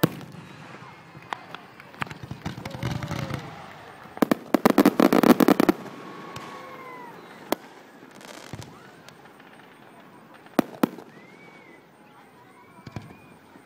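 Aerial firework shells bursting overhead: a sharp bang at the start, a dense run of rapid crackling about four seconds in that lasts over a second, then single bangs every few seconds.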